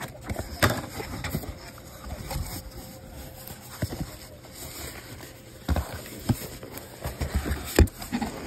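Corrugated cardboard case being handled and opened by hand: cardboard scraping and rubbing, with irregular knocks and taps. The loudest is a sharp knock near the end.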